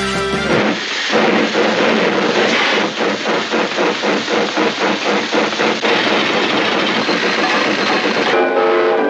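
A loud, rushing, engine-like noise with a regular chugging pulse of about four beats a second through the middle. Music comes back in near the end.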